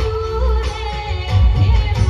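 Navratri ras dance music: a held, sung melody over a strong, heavy drum beat.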